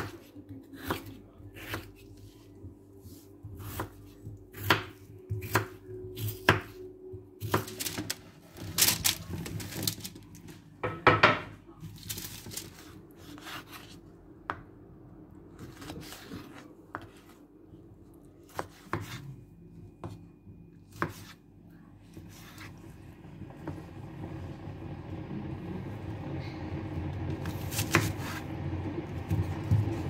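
Knife chopping food on a cutting board: sharp, irregular knocks, one or two a second, thinning out about halfway through. A steady noise grows over the last several seconds.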